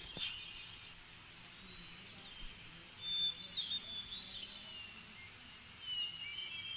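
Birds chirping: a few short whistled calls and trills over a steady, thin high-pitched hiss of outdoor ambience.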